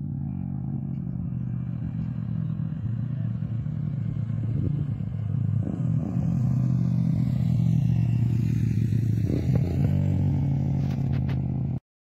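Motorcycle engine running as the bike approaches along the road and passes, growing louder toward the middle. Near the end come a few sharp clicks, then the sound cuts off suddenly.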